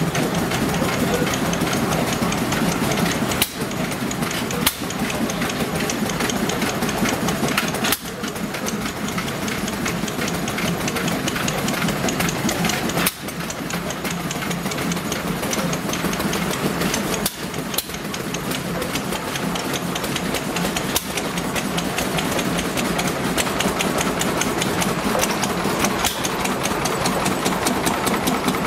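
Several small vintage stationary engines running together, a steady mix of chugging and fast mechanical clatter. Among them is a hopper-cooled engine warm enough for its cooling water to steam.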